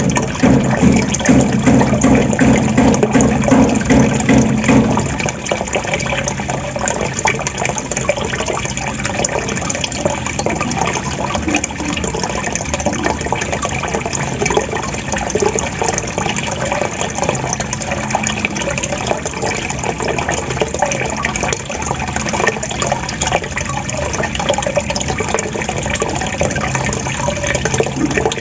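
Water gurgling and trickling without a break, with a deeper pulsing gurgle for about the first five seconds before it settles into a steadier splashing trickle.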